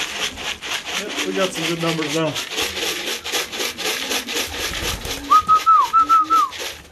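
A person whistling to call racing pigeons in through the loft trap: two short, warbling whistles about five seconds in, over a fast, steady rattle. A pigeon coos low in the first half.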